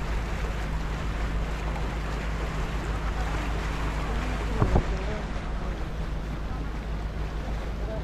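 A boat's engine running steadily, with wind and water noise. A short call from a voice about halfway through.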